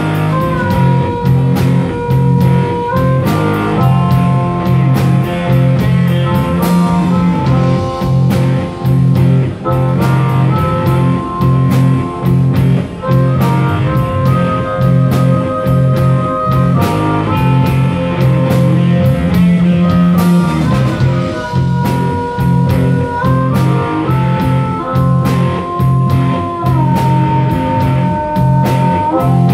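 Live blues-rock band playing: a harmonica cupped to a vocal microphone plays long held notes that step between pitches, over electric guitar, bass guitar and a drum kit keeping a steady beat.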